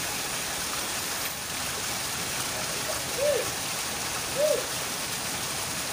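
Steady rushing of river water flowing, with two short rising-and-falling hoots about a second apart past the middle.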